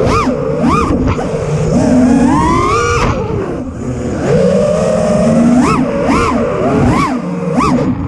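FPV freestyle quadcopter's four brushless motors (Ethix Mr Steele Stout 2306, 1750KV, on 6S) and propellers whining, the pitch swooping up and down with quick throttle changes: a few fast swoops at the start, a long climb in the middle, then a run of rapid swoops near the end.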